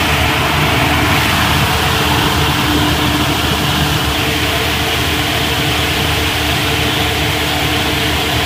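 Budd RDC's electric roof-mounted radiator cooling fan running steadily, a loud rush of air with a steady hum, over the low running of the car's Detroit Diesel engine at operating temperature. The fan is turning the right way, blowing air as intended.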